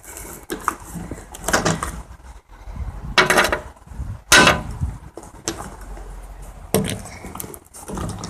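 Small hard objects being picked up and set down on a surface, giving a series of separate clinks and clatters.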